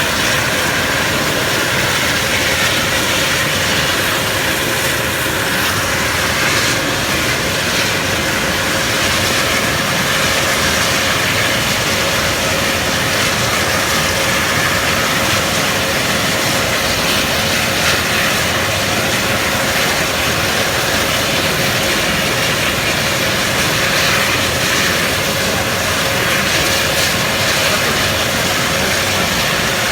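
Airbus EC135 helicopter's twin turbine engines and rotor running steadily: a constant turbine whine over a loud even rush, with no change in pitch or level.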